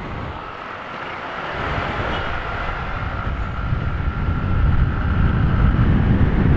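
Honda Click 150i scooter pulling away and gathering speed, with low wind rumble on the microphone growing louder from about a second and a half in. A steady high whine runs through most of it and stops near the end.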